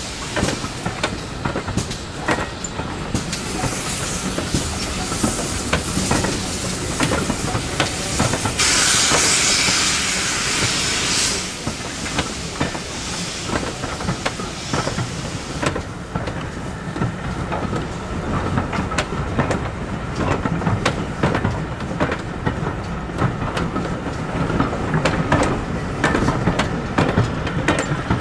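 Double-headed steam train moving past, with steam hissing from the locomotives and a loud burst of hiss about nine seconds in. Under it the coaches' wheels clickety-clack over the rail joints as carriage after carriage rolls by.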